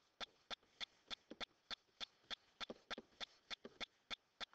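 Faint, evenly spaced clicking, about three clicks a second.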